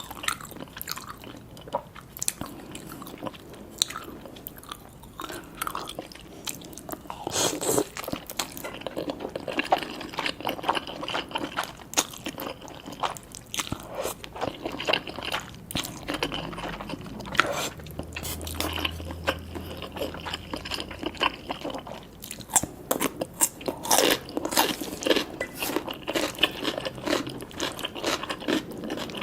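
Close-miked eating: chewing and crunching mouthfuls of spicy cheese instant noodles with tobiko, in a steady run of wet clicks and crisp crackles.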